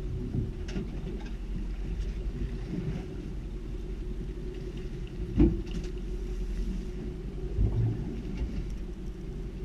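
Steady low rumble of a small fishing boat on the water, with one sharp thump about five and a half seconds in and a softer bump near eight seconds.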